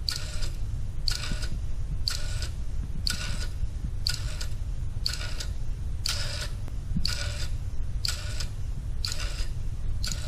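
Meccano-built electromechanical clock ticking about once a second, each tick a short metallic clack with a brief ringing tone, paced by its quartz-regulated one-second pendulum. A steady low rumble runs underneath.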